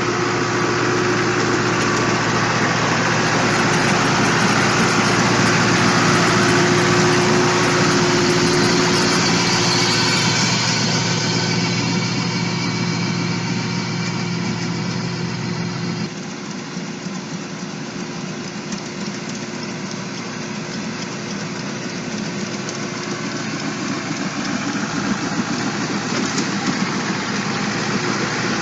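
Engine of a heavy tree-cutting machine running steadily. About halfway through the sound changes suddenly, dropping in level and losing its deep lines, and then slowly grows louder again.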